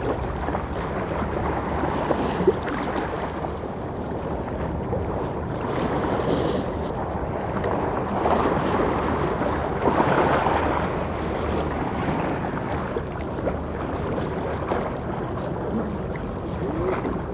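Wind buffeting the microphone over choppy sea water lapping, a steady rushing noise with a brief swell about ten seconds in.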